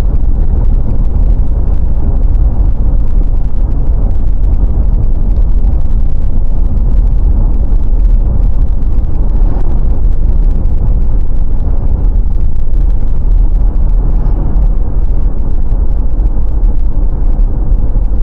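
Steady, loud low rumble of road and engine noise inside a car's cabin while driving at highway speed.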